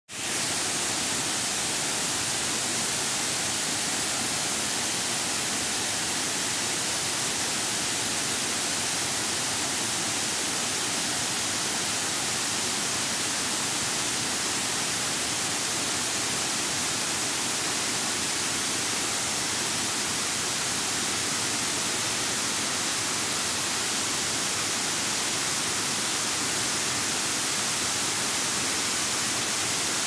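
A waterfall rushing steadily: an even, unbroken hiss of falling water.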